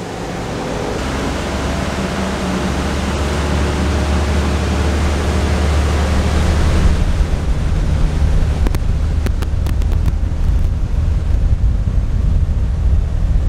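A large motor yacht's diesel engines being throttled up to get the boat on plane: a low, steady drone that grows louder over the first few seconds, with the rush of water and wind over it.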